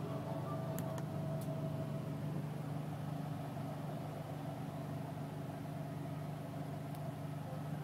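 Steady low hum of a London black cab's engine, heard inside the passenger compartment, with a few faint clicks about a second in and again near the end.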